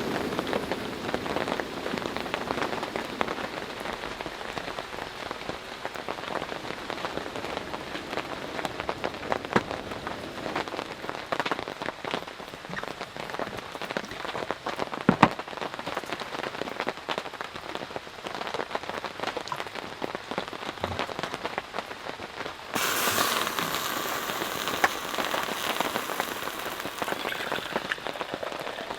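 Heavy rain falling steadily, a dense hiss of drops hitting a surface, with one sharper knock about halfway through. About three-quarters of the way in, the rain sound abruptly turns brighter and a little louder.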